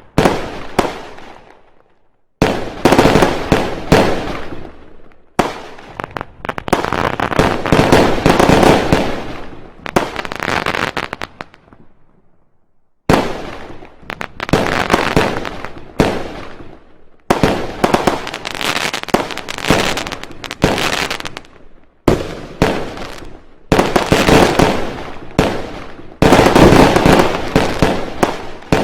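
Fireworks going off: volley after volley of rapid, loud firecracker bangs and crackling, each run starting suddenly and fading out, with brief lulls about two and twelve seconds in.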